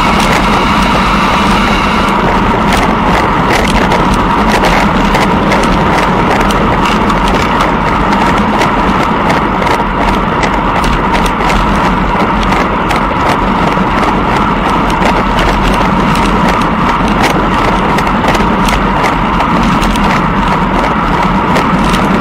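Steady, loud wind rush on the microphone of a camera carried by a moving racer, with frequent small clicks and knocks throughout.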